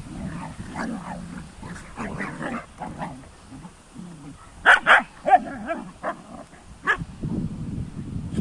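Dogs play-fighting, with low wavering growls throughout and short sharp barks: two close together about halfway through, another just after, and one more near the end.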